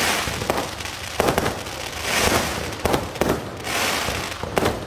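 Aerial fireworks going off overhead: a string of sharp bangs at uneven intervals, with hissing and crackling from the glittering bursts between them.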